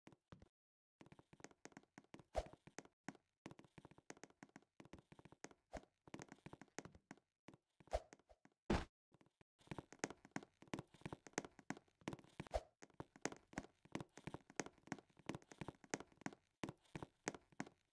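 An irregular run of faint taps and clicks, with a few louder thumps: one about two seconds in, two around eight and nine seconds, and one near thirteen seconds.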